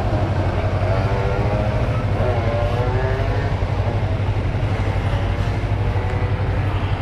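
Motorcycle engines idling, the steady low rumble of the camera bike, a Yamaha MT25 parallel twin, loudest over the other escort bikes.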